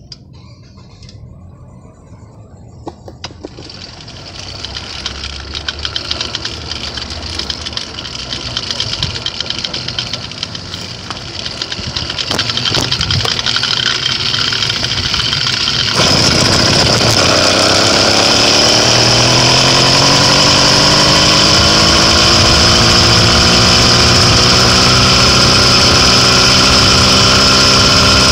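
Motorized bicycle's small engine: the bike rolls and picks up speed for several seconds, then the engine catches a little over halfway through and runs loudly, its pitch climbing steadily as the bike accelerates.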